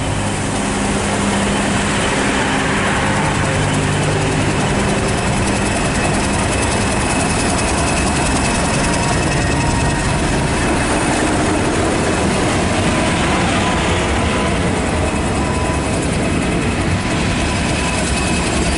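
British Rail Class 31 diesel locomotive's English Electric V12 engine running as the train passes close by, mixed with the rumble of coach and locomotive wheels on the rails. A steady low engine hum in the first few seconds gives way to a broader, even rumble.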